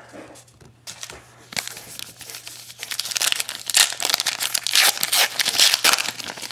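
A trading card pack's wrapper being torn open and crinkled by hand. It is quiet at first, then a dense crackling rustle starts about a second and a half in and is loudest over the last few seconds.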